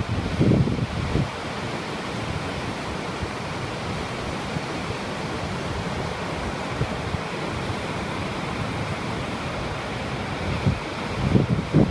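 Pacific Ocean surf washing steadily onto the beach. Wind buffets the microphone in low rumbling gusts at the start and again near the end.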